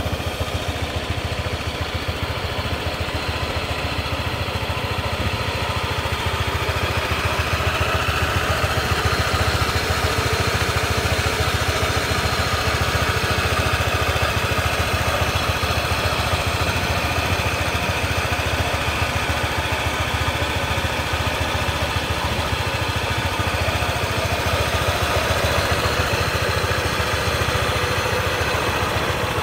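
Honda PCX 125 scooter's single-cylinder four-stroke engine idling steadily.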